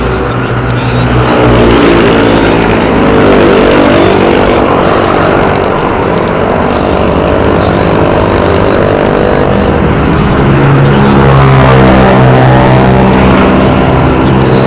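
Motor vehicle engine running close by, its note rising and falling twice as it speeds up and slows down, over a low road rumble.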